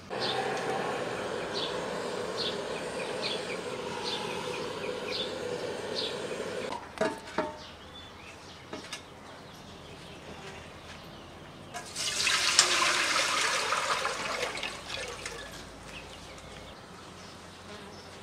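Water pouring in a steady stream for several seconds, then a few knocks, and a second, louder rush of pouring water partway through.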